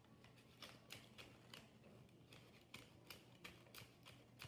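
Faint crisp paper rustles and clicks, about three a second, from a folded paper fortune teller being handled and worked between the fingers.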